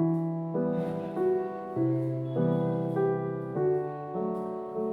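Background music: a soft piano melody, notes struck about twice a second.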